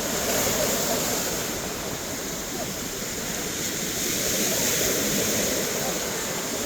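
Steady rush of surf breaking on a beach.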